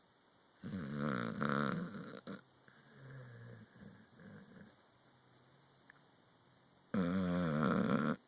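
A sleeping red-nose pit bull snoring: two loud, rattling snores, one starting about half a second in and one near the end, each lasting over a second, with softer breathing between them.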